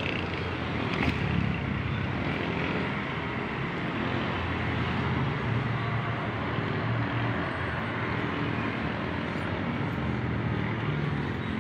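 Steady background motor-vehicle noise, a continuous low rumble with no clear rise or fall, with a faint click about a second in.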